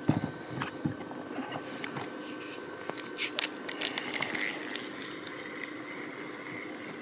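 Scattered clicks and light knocks of fishing rods and tackle being handled in an inflatable boat as a rod is set in place, over a faint steady hum.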